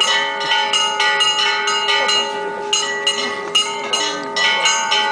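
Church bells ringing for Easter: a fast, rhythmic run of strikes, about three to four a second, on bells of several different pitches, each stroke ringing on.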